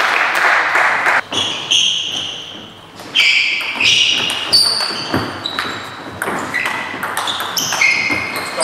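A table tennis rally in a large hall: sharp clicks of the ball off bats and table, quick and irregular, with short high squeaks of shoes on the wooden floor. About a second of rustling noise comes at the start, before the rally.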